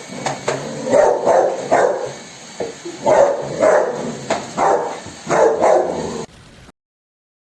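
A dog barking repeatedly, about ten loud barks in quick groups of two or three; the sound cuts off suddenly near the end.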